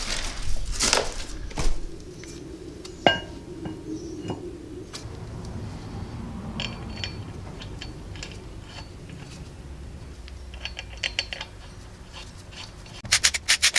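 Steel parts and hand tools clinking and knocking while the flywheel is fitted to the engine, with one sharp ringing clink about three seconds in. Near the end comes a fast run of ratchet-wrench clicks as the flywheel bolts are run in.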